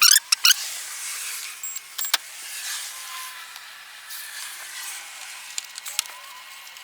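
A quick cluster of loud, sharp clicks and snaps, then single clicks about two seconds in and near the end, from hands working on a car's front bumper cover and fog light fittings.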